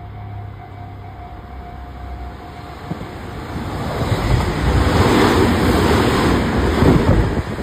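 Tobu Railway electric commuter train passing close by. Its wheels rumble and clatter on the rails, building from about three seconds in and loud for the last few seconds.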